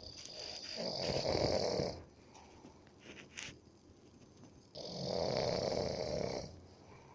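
A sleeping person snoring: two long snores of about two seconds each, the second beginning about five seconds in.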